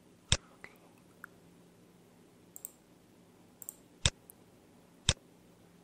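Computer mouse clicks: three sharp clicks, one just after the start and two about a second apart near the end, with a few fainter ticks between them.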